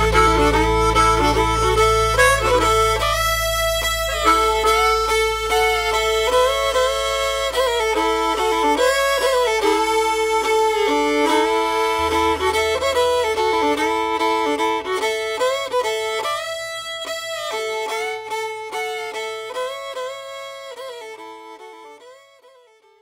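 Background country music, a fiddle carrying the melody over low held notes, fading out to silence near the end.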